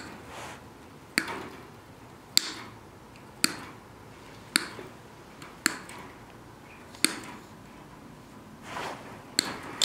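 Diagonal wire cutters snipping through chicken wire at its twisted joints, about seven sharp clicks roughly a second apart. The wire mesh rustles near the end.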